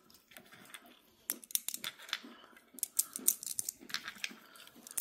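Glass mancala stones clicking and clinking as they are dropped one by one into the pits of a wooden board and knock against each other, in three quick runs of clicks.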